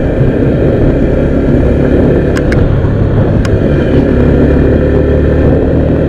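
Sport motorcycle cruising at road speed: a steady engine drone under a heavy rush of wind on the microphone. Three faint ticks come a little over two seconds in and again near three and a half seconds.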